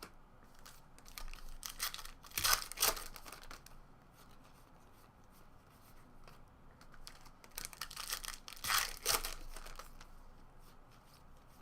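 Trading card pack wrappers being torn open and crinkled, in two louder bouts of ripping about two seconds in and about eight seconds in, with softer rustling of wrappers and cards between.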